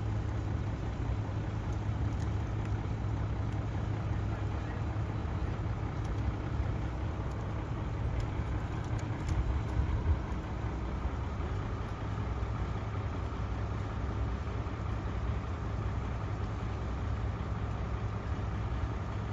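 Engines of parked emergency vehicles idling, a steady low rumble.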